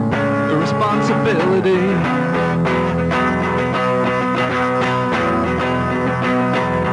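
Guitar-based band music with a steady, even beat; a wavering lead line comes in about half a second in and runs for a second or so.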